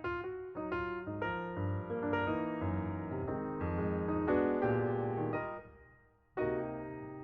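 Background piano music: struck notes and chords that ring and decay, dying away about six seconds in before a new chord comes in.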